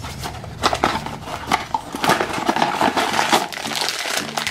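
Hands opening a small cardboard blind box and crinkling the shiny plastic blind bag from inside it: a run of quick crackles and rustles.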